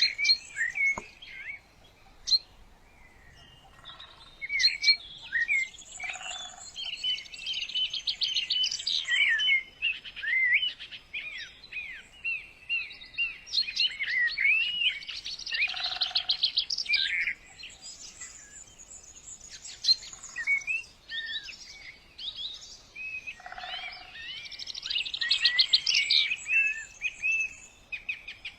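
Songbirds chirping and calling without pause, many short sweeping notes broken by rapid trills.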